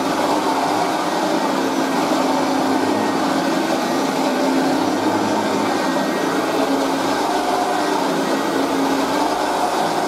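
1978 Hoover Junior Deluxe upright vacuum cleaner running steadily with its 350-watt motor while pushed back and forth over a shaggy carpet, making the Hoover growl. It runs well for a 39-year-old machine, though probably not as smoothly as when new.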